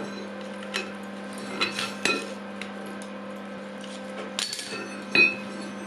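Iron clinking on a steel anvil as a wrought iron round bar and calipers are handled on it: a few sharp metallic knocks, the loudest about five seconds in with a short ring. A steady low hum runs underneath.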